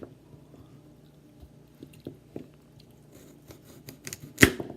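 Knife cutting through baby carrots, a few scattered crunchy cuts, with one louder sharp knock about four seconds in.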